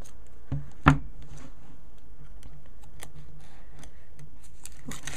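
Knife blade slitting the plastic shrink-wrap on a boxed phone, heard as scattered faint ticks and scrapes, with one sharp click about a second in. A steady low hum runs underneath.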